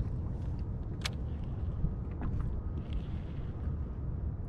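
Steady low rumble of wind and water around a kayak, with a few light clicks and one sharp click about a second in.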